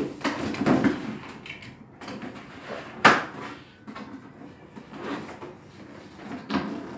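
Cardboard box and its inner packaging being handled and pulled apart: irregular scraping, rustling and knocks, with one sharp knock about three seconds in.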